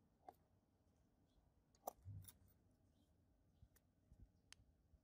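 Faint, scattered clicks and taps of a toy car's small plastic chassis being handled on a tabletop, the sharpest click about two seconds in, followed by a soft thud.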